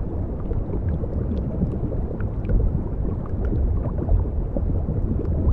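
Underwater ambience: a steady low rumble, with faint scattered clicks above it.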